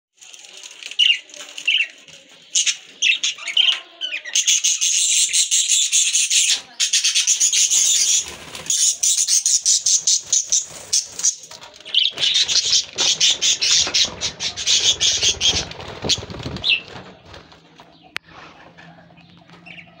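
A flock of budgerigars chattering, with a dense run of rapid high chirps and warbles through most of it that thins out near the end. Wings flutter, and a low rumble sits underneath for a few seconds in the middle.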